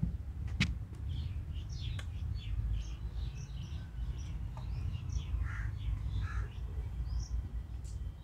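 Small birds chirping in many short, quick calls, with a crow cawing a couple of times in the second half. Underneath is a steady low rumble, and there is a sharp click near the start.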